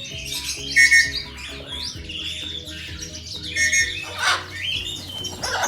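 Background music with a steady beat, with high bird chirps recurring over it and two short sharp bird calls near the end.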